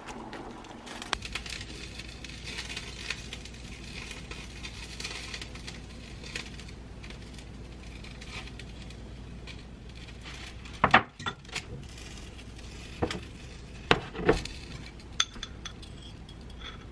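Kitchen utensils knocking and clinking against bowls and a pan, with a few sharp knocks in the second half, over a steady low hum that starts about a second in.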